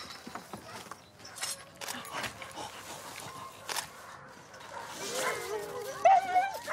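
Sled dogs whining and yipping, excited at being harnessed for a run, starting about five seconds in and growing louder. Before that there are only scattered light clicks and rustles.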